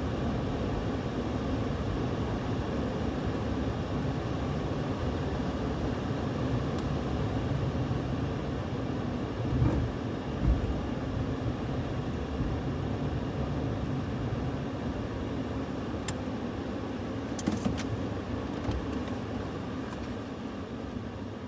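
A car driving, with steady road and engine noise, a couple of short thumps about ten seconds in, and a few sharp clicks later on.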